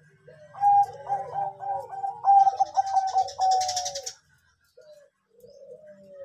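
Bangkok-type zebra dove (perkutut) cooing: a fast, warbling run of overlapping coo notes lasting about three and a half seconds, then a few softer single coos near the end.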